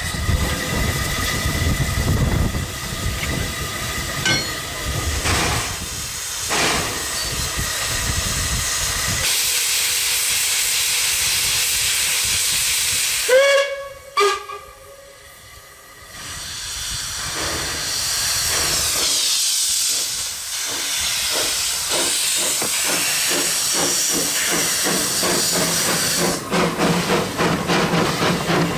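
Two small steam tank locomotives, D 140 and F 13 'Peveril', working a double-headed train: steady steam hiss, a short steam whistle sounded twice about halfway through, then exhaust beats and hiss growing as the engines pass close by.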